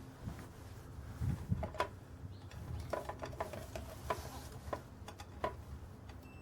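Irregular clicks and small handling knocks from turning a multimeter's rotary selector dial to continuity/buzzer mode, with about half a dozen sharp clicks between one and six seconds in.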